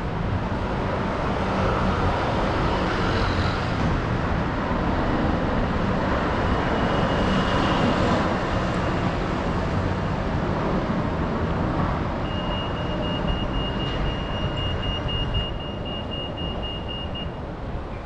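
Street traffic noise with passing cars, and a pedestrian crossing's signal sounding a high, rapidly pulsing beep for about five seconds in the second half.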